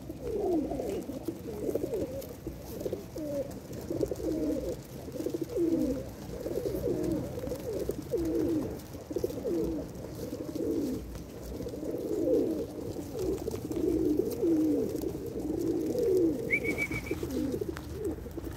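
A flock of Pakistani high flyer pigeons cooing, many coos overlapping without a break. A short, higher chirp sounds once near the end.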